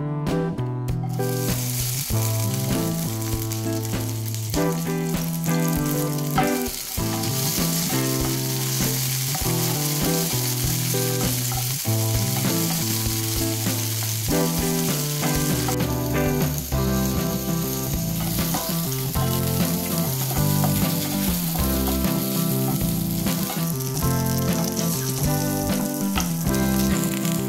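Green chillies frying in oil in a non-stick pan, a steady sizzling hiss that builds after the first couple of seconds, with some stirring by a wooden spatula. Background music plays throughout.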